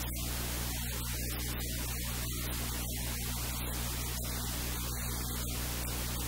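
Steady hiss with a low electrical hum underneath, unchanging throughout.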